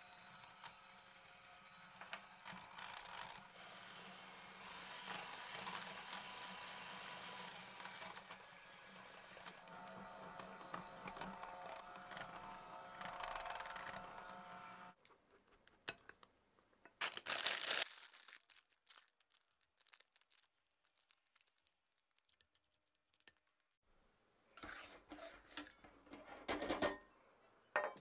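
Electric hand mixer whipping cream in a glass bowl: a steady motor whirr that stops about halfway through. After it come a few clicks and knocks, then brief rubbing and handling noises near the end.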